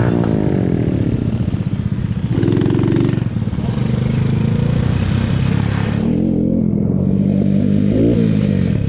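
Honda C90's small single-cylinder four-stroke engine running on the move, its pitch falling in the first second and rising again near the end as the revs change. A hiss of wind on the microphone carries over it and drops off about six seconds in.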